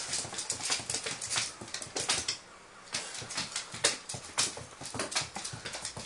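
A cat's paws and claws scrabbling, tapping and skidding on a laminate wood floor as it darts and pounces: rapid irregular clicks and taps, with a short lull a little before the middle.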